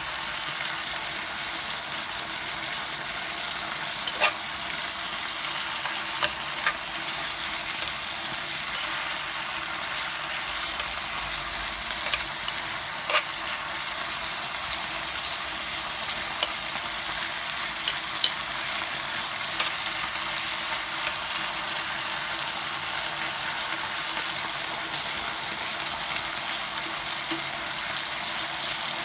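Chicken pieces and vegetables sizzling steadily in a pan of sauce. About ten sharp clicks are scattered through it as a utensil knocks against the pan during stirring.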